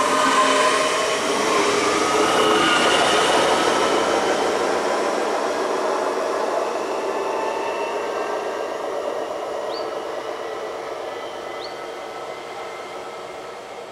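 Red DB Regio electric multiple unit moving away along the track. An electric motor whine with several tones, some rising slightly in pitch over the first few seconds, sits over the rolling noise of its wheels on the rails, and the whole sound fades steadily as the train recedes.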